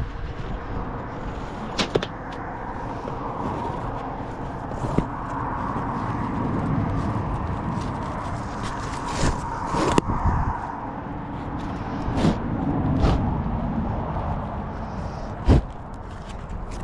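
A rope being worked through a metal D-ring on a truck's canvas tarp and tied off, with swishes of the rope and a few sharp snaps or slaps against the tarp over a steady background hiss.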